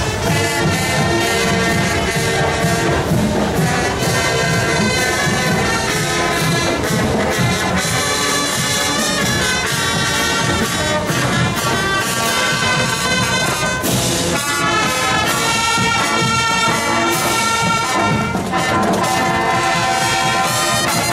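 Marching band's brass section playing a tune: trumpets, trombones and sousaphones in sustained, loud notes as the band marches past.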